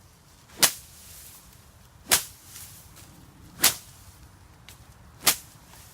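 A green sapling swung like a sickle, swishing through tall grass and knocking it down, four strokes about a second and a half apart.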